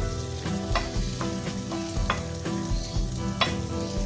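A metal spoon tapping and scraping against a hot cast-iron wingko pan as coconut rice batter is spooned into its cups, with frying sizzle; the sharp taps come about every second and a half. Background music plays underneath.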